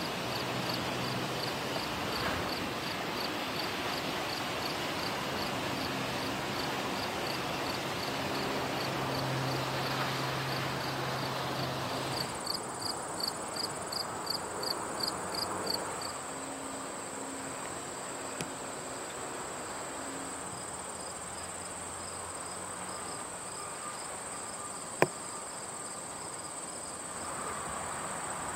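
Insects chirping in an even pulse a few times a second. For the first twelve seconds they are heard over the low rumble of diesel locomotives moving past. After a cut the chirps come louder for a few seconds, then give way to a steady high trill, with one sharp click near the end.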